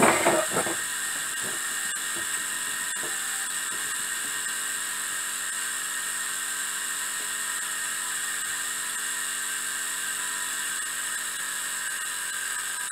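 Miniature three-cylinder steam engine running steadily, a constant high-pitched whir.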